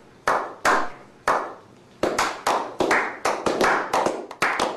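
Hand clapping from a small group of men: three slow, spaced claps, then from about two seconds in more hands join and the claps come quicker and quicker.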